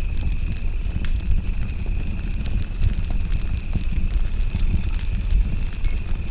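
Campfire crackling with scattered sharp pops over a low rumble, against a steady chorus of crickets trilling high and continuously.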